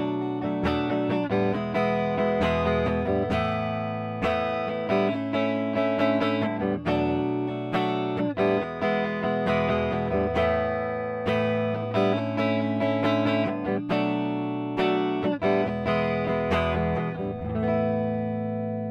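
PRS SE Custom 22 electric guitar played on its neck pickup: a continuous passage of picked chords and single notes, each note ringing on after a sharp pick attack.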